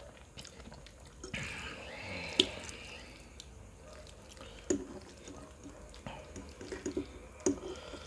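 Close-miked wet mouth sounds of chewing and swallowing spicy noodles, then a metal fork clicking and scraping against a ceramic plate as noodles are twirled, with three sharp clicks, the loudest about two and a half seconds in.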